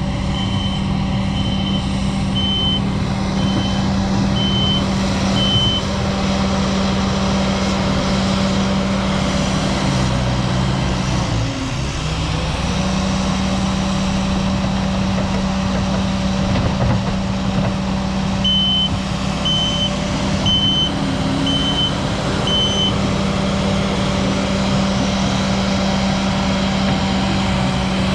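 Skid steer engine running steadily with its backup alarm beeping about once a second, six times near the start and five times later on. The engine note dips briefly about halfway through, then comes back up.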